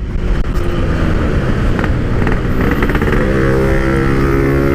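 Yamaha RX-King 135cc two-stroke single-cylinder motorcycle engine running under way through an exhaust with a PK1 silencer packing, giving a very mellow note. The revs climb a little, then hold steady from about three seconds in over a rough low rumble.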